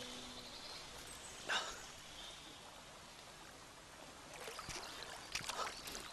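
Water splashing as a man scoops it up in his cupped hands and dashes it onto his face, in a few short splashes: one about a second and a half in and a cluster near the end, over a faint steady background hush.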